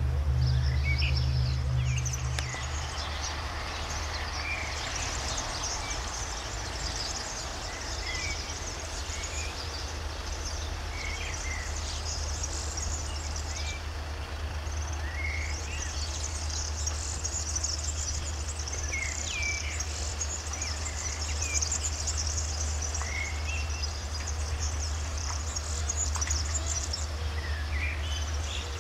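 Outdoor birdsong and insects: scattered short bird chirps over a high, continuous insect buzz that drops out briefly twice, with a steady low rumble underneath.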